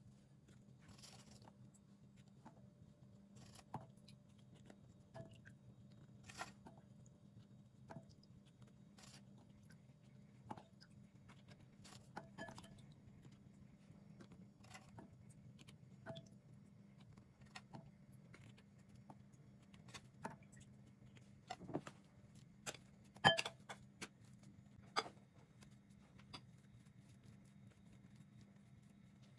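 Faint, scattered light clicks and taps, one every second or two, as speculoos biscuits are picked up and laid one by one on cream in a metal cake pan, over a steady low hum. A quick cluster of louder taps comes about two-thirds of the way through.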